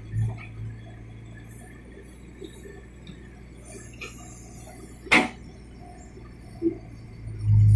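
Case 770 EX backhoe loader's engine running low and steady while the backhoe bucket works a rocky dirt pile, with one sharp metallic clank about five seconds in and a smaller knock shortly after. The engine revs up loudly again near the end.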